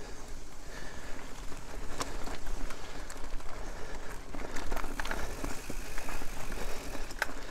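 Mountain bike rolling over a rutted, churned-up dirt track: a steady low rumble of riding noise, with a few sharp knocks and rattles as the bike hits bumps.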